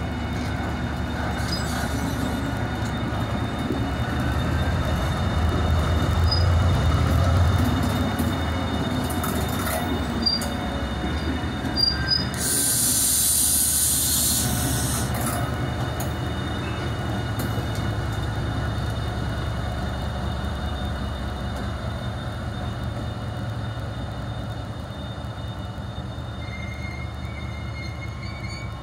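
Class 68 diesel-electric locomotives passing on the rear of a freight train, their engines rumbling over the run of the wheels, loudest about seven seconds in, then fading as the train draws away. About halfway through comes a sharp burst of hissing lasting a couple of seconds.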